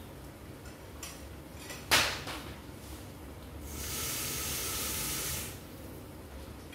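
A sharp knock about two seconds in, then tap water running for about two seconds as a container is filled.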